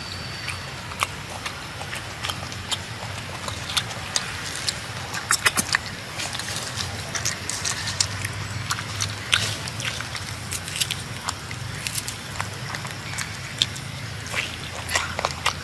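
A macaque chewing and biting into rambutan-like hairy red fruit close to the microphone: irregular wet clicks and smacks scattered throughout. A steady low hum sits underneath.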